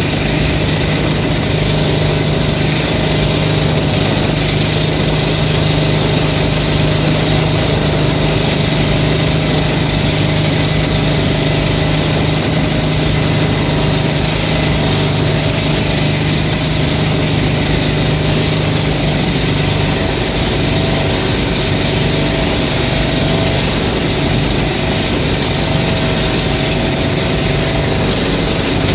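The two engines of a motor banca, a 22 hp Esike E-383 main engine and a 12 hp Super Kama with reduction drive, running together under way. It is a loud, steady engine note with a strong low tone that holds unchanged, over the rush of water along the hull.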